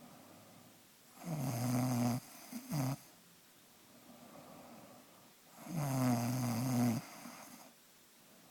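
Snoring: two long, loud snores about four seconds apart, the first followed by a short snort, with quieter breathing in between.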